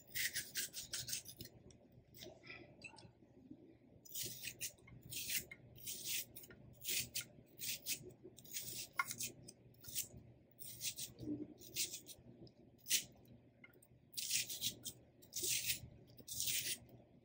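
Kitchen knife slicing through a raw onion: a run of short, crisp slicing strokes, about one or two a second, with a brief pause early on.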